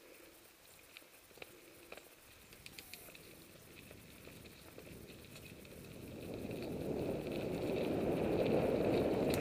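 Mountain bike riding along a dirt trail: light clicks and rattles from the bike in the first few seconds, then a rough rush of tyre and wind noise that swells about six seconds in and is loudest near the end.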